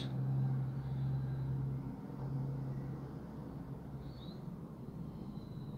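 Steady low hum over a background rumble, strongest in the first two seconds, with a faint short high chirp about four seconds in.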